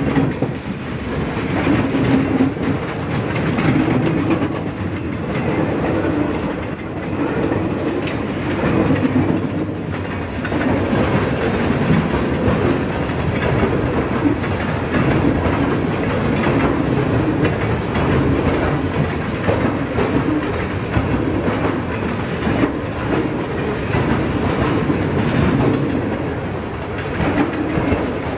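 Freight cars of a passing train rolling by on the track in a steady, continuous run, their wheels clicking over the rails again and again.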